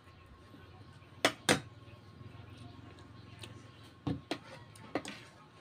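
Metal fork and spoon clinking against a ceramic plate while fish is pulled apart: two sharp clinks about a second in, then a few lighter ones near the end.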